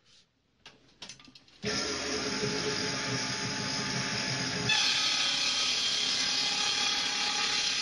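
A combination woodworking machine switches on after a few clicks and runs with a steady motor-and-cutter whine. About three seconds later the sound steps up, louder and brighter, and holds.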